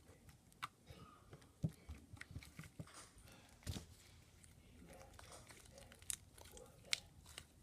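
Putty-like slime handled by hand, giving faint, irregular clicks and crackles.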